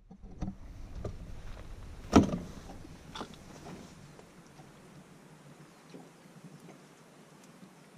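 Knocks and clatter in a boat as a netted brown trout is handled over a cooler, with one sharp knock about two seconds in, then fainter scattered ticks.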